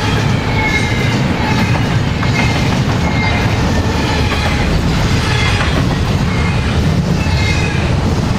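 Train rolling past, a steady loud rumble of wheels on rail with short high squeals from the wheels recurring every second or so.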